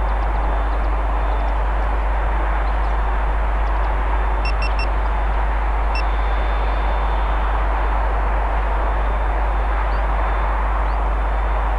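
A steady, even rushing noise with no rise or fall, and a few faint short high pips about halfway through.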